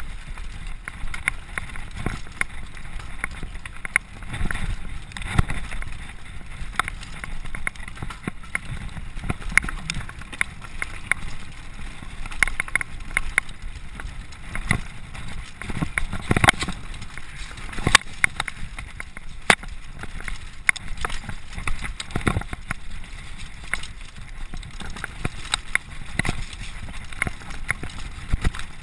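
Downhill mountain bike riding fast over a rough dirt trail: wind rumbling on the microphone, tyre noise, and frequent sharp rattles and knocks from the bike over bumps, the sharpest a little past halfway.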